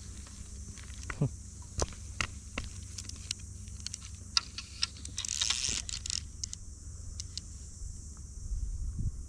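Low rumble of wind on a body-worn camera's microphone, with scattered sharp clicks and a brief rustle about five seconds in: clothing and fly-rod handling noise.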